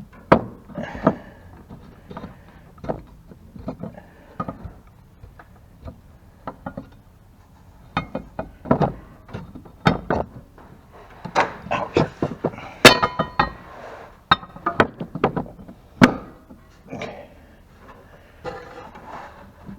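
Irregular metal clinks, knocks and scrapes from handling and seating a mower blade on its spindle. One clink about 13 seconds in rings briefly.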